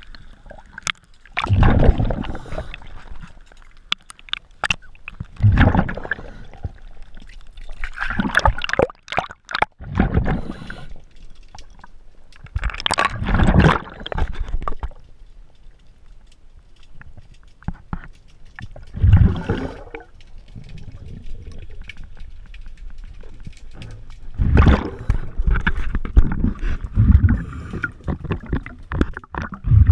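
A diver breathing underwater through a regulator: bubbling bursts of exhaled air every few seconds, with a few sharp knocks in between.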